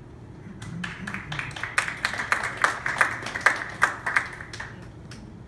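Audience applauding, the claps starting about half a second in, thickening, and dying away near the end.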